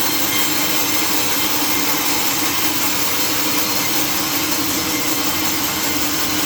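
Sawmill saw cutting through a mahogany log, a steady, continuous whine of blade in wood over the machine's running noise.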